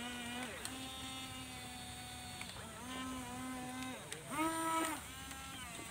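Remote-control toy excavator's small electric gear motors whining in four separate runs as the boom and arm move. Each run rises in pitch as it starts and falls as it stops. The short run about four and a half seconds in is the loudest.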